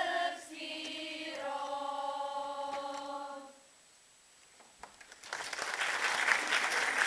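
Girls' choir singing, holding long final notes that end about three and a half seconds in. After a short silence, an audience starts applauding.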